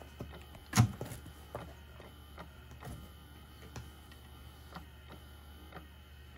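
Electric cat toy running with a steady hum while the cat grips its pink wand, giving a sharp click about once a second. A louder thump about a second in.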